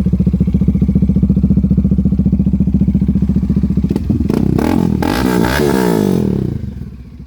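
Bajaj Dominar 400's single-cylinder engine on a carburettor and an open pipe, idling with a steady lumpy beat, then blipped once about four seconds in. The pitch rises and falls for about two seconds before it settles back to idle and goes quieter near the end.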